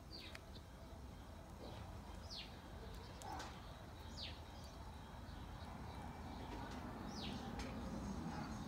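A bird calling: four short high notes, each sliding down in pitch, a couple of seconds apart, over a faint low background rumble.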